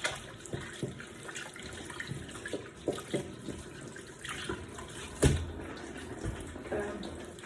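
Tap running into a sink while hands are washed under it, with scattered small clicks and splashes and one sharper knock about five seconds in.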